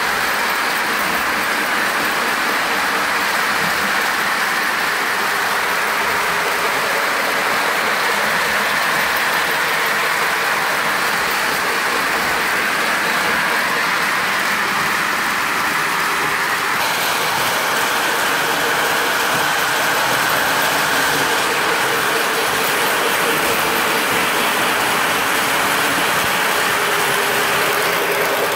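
Several Lionel O-gauge electric toy trains running at once on three-rail track: a steady whir of electric motors and the rolling clatter of metal wheels on the rails. The sound shifts about halfway through as a train runs close by.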